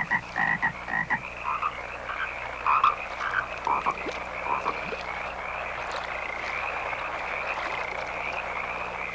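Frogs croaking: a string of short, separate croaks over the first four or five seconds, over a steady high-pitched chorus that carries on throughout.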